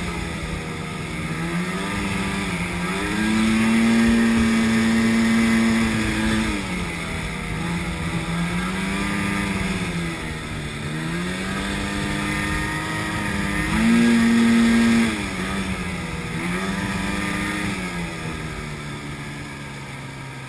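Snowmobile engine running under changing throttle, its pitch rising and falling again and again as it speeds up and eases off. The loudest, highest stretches come about four seconds in and again around fourteen seconds.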